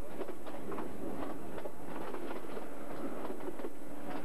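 Passenger train running at speed, its wheels clicking rapidly and irregularly over rail joints and points above a steady rumble, heard from an open carriage window.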